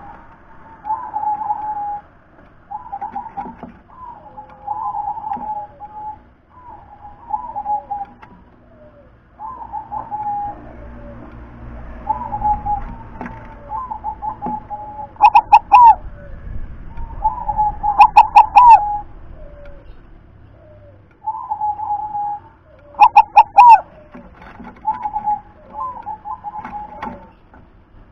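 Zebra dove (perkutut) cooing over and over in short phrases of quick staccato notes, one every second or two. Three much louder runs of rapid notes come in the second half.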